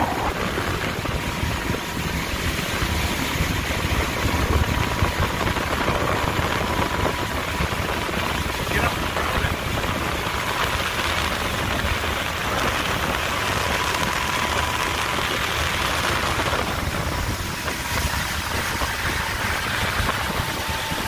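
Motorboat engines running steadily at speed, under a loud hiss of rushing water and wind, with a faint steady whine over it.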